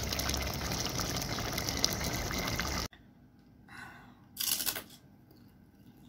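A pot of fish-head paksiw simmering on the stove, a steady bubbling hiss that cuts off abruptly about three seconds in. Then two short crunches about a second apart as a crisp fried snack is bitten.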